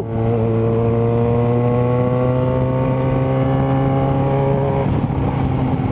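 Yamaha XJ6N's 600 cc inline-four engine running through a Power GP2 4x1 full aftermarket exhaust while under way. Its pitch rises slowly and steadily, then briefly breaks and dips about five seconds in.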